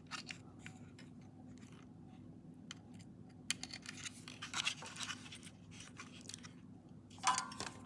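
Small scratching and clicking of tiny metal parts being handled, as a soldered contact sleeve is fitted into a multimeter's input-jack tube. A faint steady hum runs underneath, and a brief louder sound comes near the end.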